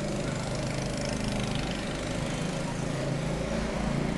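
A motor running steadily in the background: an even, unbroken drone.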